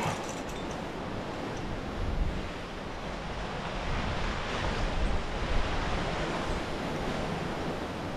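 Wind rushing over the microphone in low gusts, with a steady outdoor rush. The gusts swell about two seconds in and again around five seconds in.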